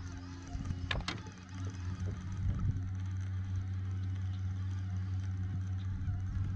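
Boat motor running steadily, a low hum with its overtones. Two sharp knocks about a second in.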